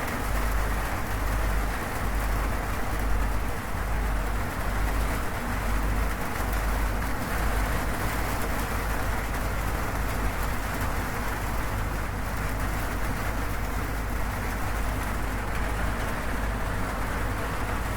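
Steady heavy rain falling on a zinc sheet roof, an even hiss of drops, with a deep low rumble underneath that swells and dips through the first half.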